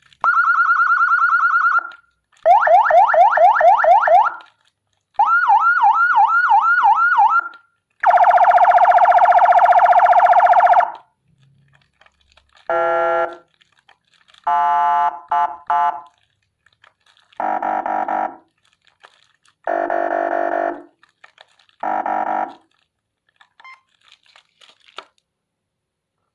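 Whelen HHS siren module driven by a 200 W amplifier, switched through its tones one after another: a fast warble, quick repeated rising sweeps, a steady buzzing horn tone for about three seconds, then a run of short blasts, each pattern cut off sharply with a pause before the next.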